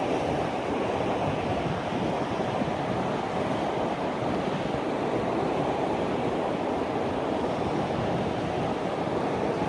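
Steady rushing noise of wind and moving river water, even and unbroken.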